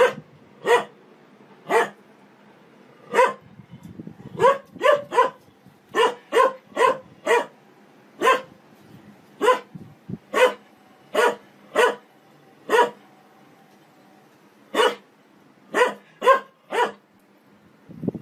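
A dog barking in short, sharp single barks, about twenty of them at uneven spacing, coming fastest in the middle, with a pause of about two seconds near the end.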